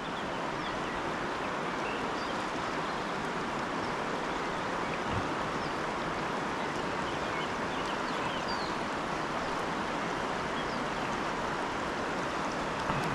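Steady rush of river water, an even noise that does not let up, with a few faint high chirps over it and a soft thump about five seconds in.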